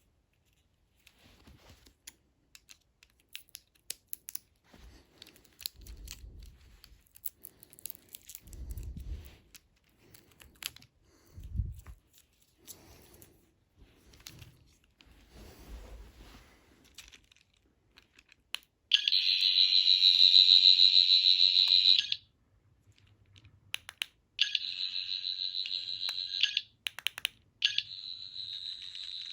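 Packaging being handled and torn open: rustling, crinkling and light knocks. Then, about two-thirds of the way in, the sonic screwdriver toy sounds its high-pitched electronic effect three times. The first burst, about three seconds long, is the loudest.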